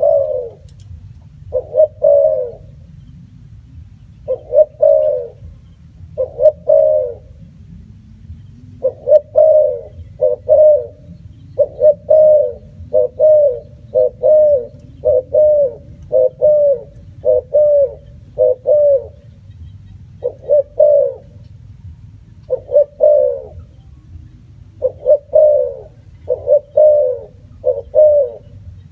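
Spotted dove cooing: arched coo notes repeated in short phrases of two or three, with brief pauses between phrases, over a low steady rumble.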